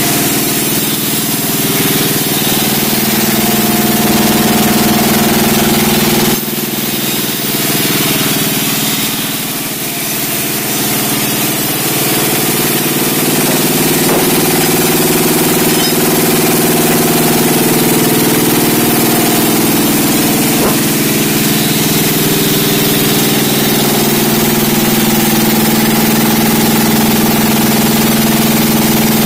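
Sawmill engine running steadily, with a sudden drop in level about six seconds in that comes back up a few seconds later.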